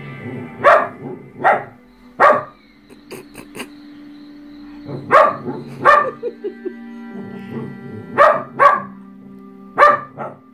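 Small dog barking sharply about eight times, in ones and twos with pauses between, begging for the biscuit a person is eating. Steady background music from a television plays underneath.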